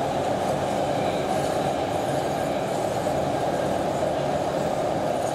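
Warsaw Metro train running through a tunnel, heard from inside the carriage: a steady, even running noise of wheels on rails and traction motors.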